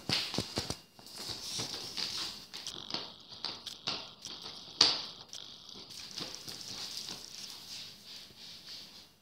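A small dog's claws clicking and scrabbling on a tiled floor as it shakes and tosses a plush toy, with irregular patters and one sharp knock about five seconds in.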